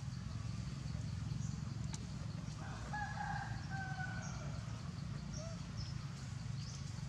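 A rooster crows once, a drawn-out call about three seconds in, over a steady low rumble, with short high bird chirps.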